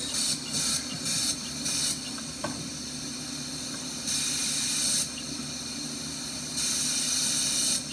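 Compressed air hissing through a pressure-cycled emergency ventilator in bursts as it cycles: three short puffs in the first two seconds, then two longer hisses of about a second each, over a steady low hum. The supply pressure is set to about 25, where the device uses a lot of air.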